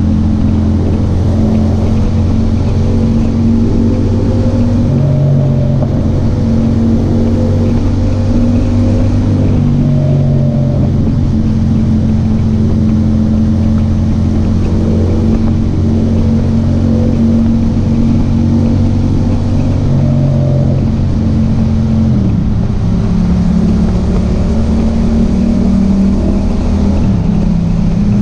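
Yamaha MT-07's 689 cc parallel-twin engine running steadily under way. Its note drops in pitch about three-quarters of the way through and again near the end.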